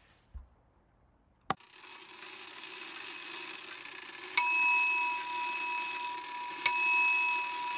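A bell struck twice, a little past halfway and again near the end, each ring holding a clear tone that fades slowly over a soft steady hiss.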